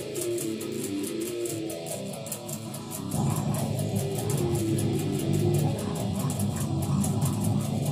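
Drop-tuned electric guitar playing a riff over a fast, steady beat. About three seconds in, the music gets louder and heavier, with more bass.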